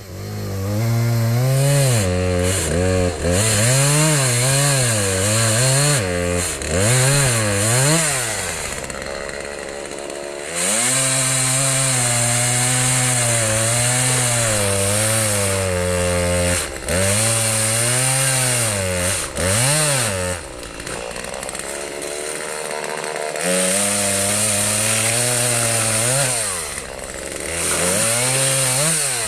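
Gas chainsaw revving up and down several times, then running at full throttle in long steady stretches with drops back to idle between them, typical of cutting through timber blocking the trail.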